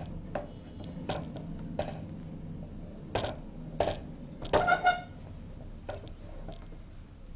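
Wooden spoon stirring thick soup in a metal kadhai, knocking against the pan's sides about once a second. Near the middle comes a louder cluster of knocks that ring briefly.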